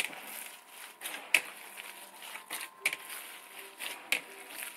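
A bare hand kneading and squeezing raw ground meat mixed with egg and breadcrumbs in a bowl for meatballs: soft, irregular wet squishing, with a few sharper squelches about a second or so apart.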